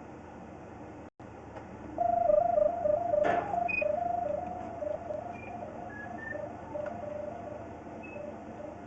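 Electronic beeping from a handheld pipe locator homing in on the sewer camera's sonde: quick tones flipping between two close pitches, starting about two seconds in and loudest at first, then fainter. A brief knock about three seconds in.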